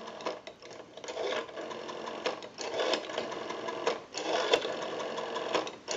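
Stromberg-Carlson 554 rotary telephone dial being wound and released for several digits in turn. Each smooth return ticks out a quick string of pulse clicks, with short pauses between digits while the dial is wound. The smooth return shows the repaired dial is pulsing properly.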